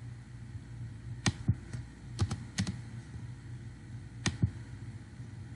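About nine sharp clicks of a computer mouse and keyboard, several in quick pairs, spread over a few seconds above a low steady hum.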